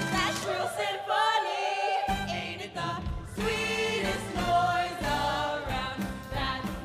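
Musical theatre ensemble of young voices singing a lively show tune in chorus with accompaniment. The low part of the accompaniment drops out about a second in and comes back about a second later.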